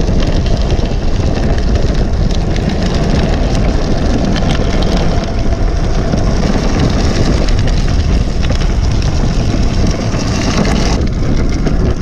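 Steady, loud rush of wind on the microphone of a camera mounted on a moving bicycle, mixed with tyre and road noise. The sound changes abruptly about eleven seconds in.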